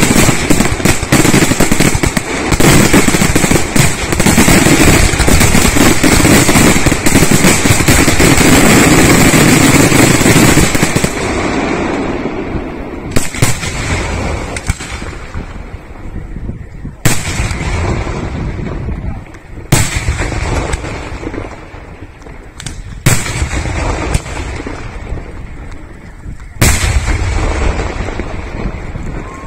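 Aerial firework shells bursting in a finale barrage: a dense, unbroken run of explosions for the first ten seconds or so. It then thins to single loud bangs a few seconds apart.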